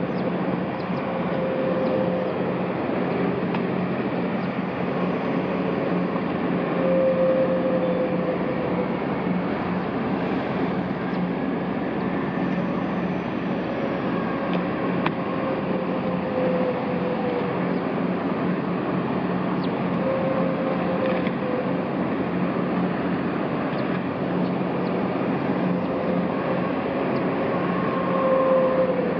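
Kvaerner Fjellstrand 35M Foilcat high-speed ferry's gas turbines running as it manoeuvres slowly to berth: a steady rumble and low hum, with a whine that comes and goes and wavers in pitch, over water churning at the stern.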